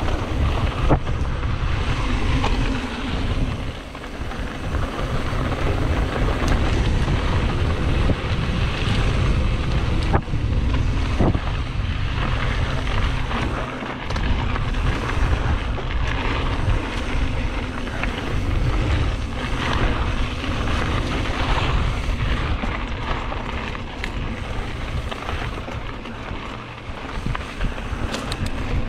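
Mountain bike riding dirt singletrack: wind rumbling on the microphone over a steady hiss of tyres on dirt, with small clicks and rattles from the bike.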